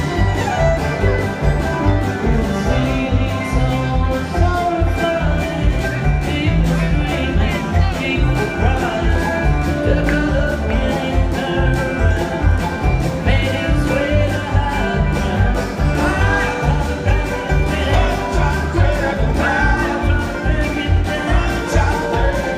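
Live string band playing an upbeat country-bluegrass number on acoustic guitar, upright bass and drums, with a steady beat.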